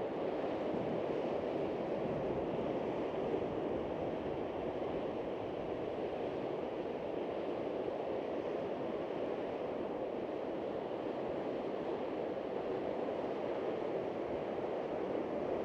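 Steady rushing noise of wind and breaking lake waves, with no single splash standing out.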